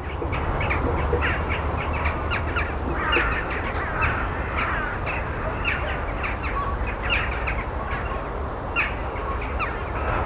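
A large flock of crows calling from bare trees: many short, overlapping caws, several a second, over a steady low rumble.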